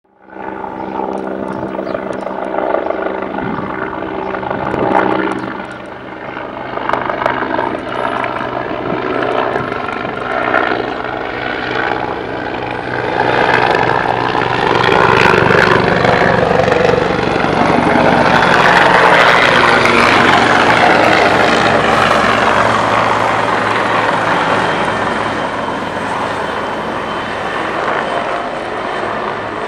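Firefighting helicopter flying overhead, its rotor and turbine sound growing louder to a peak a little past the middle, then easing off as it moves away.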